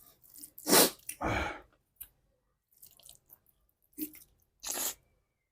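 A person eating close to the microphone: wet chewing and mouth noises, with a few short, louder noisy bursts.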